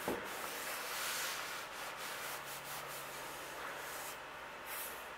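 A bare hand rubbing over sanded body filler and primer on a truck body panel, feeling for low spots and hard edges; a soft, dry, irregular rubbing hiss.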